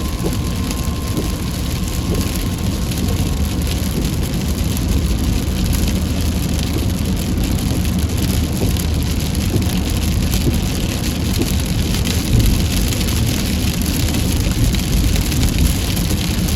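Heavy rain pelting steadily on a surface, with a continuous low rumble of a car under it.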